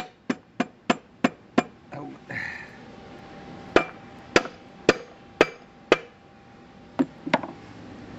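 Hammer striking the metal of a Sears ST16 garden tractor's transaxle. A quick run of about seven light taps is followed by a pause, then five harder blows about half a second apart and two more near the end.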